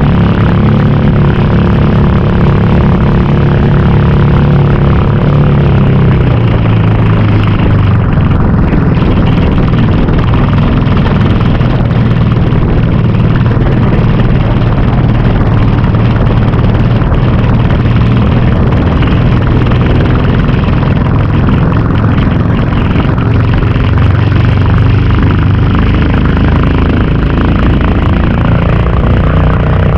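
Fishing boat (bangka) engine running loud and steady under way, its pitch shifting slightly a couple of times, over a constant rush of wind and water.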